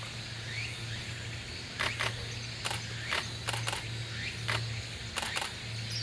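Camera shutters clicking irregularly, about eight times, several in quick pairs, over a few faint short rising bird chirps and a low steady hum.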